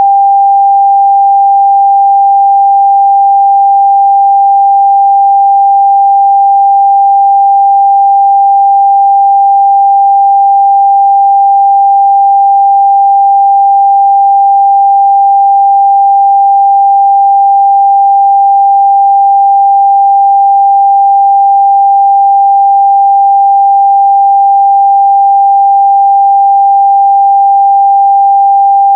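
A pure 794 Hz sine test tone held steady and unbroken at a constant loud level.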